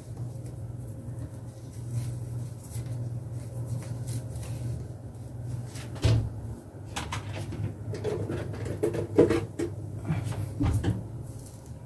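Bathroom cabinet door being opened and handled: a run of sharp clicks and knocks between about six and eleven seconds in, over a steady low hum.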